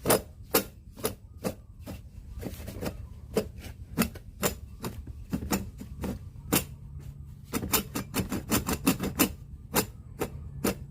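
Broken car air-conditioning compressor knocking and clattering unevenly, about two to four knocks a second and bunching closer together later, over a steady low hum. The compressor has failed internally and can hardly turn.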